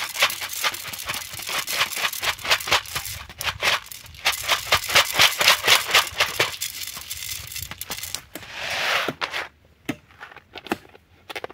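Dried corn kernels pouring and rattling into the seed box of a manual jab planter, a dense run of clicks that thins to scattered clicks near the end.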